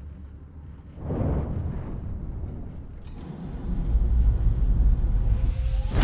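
Storm seas over a crab boat's deck: a rush of water about a second in, then a deep rumble that builds through the second half as a wave breaks over the deck.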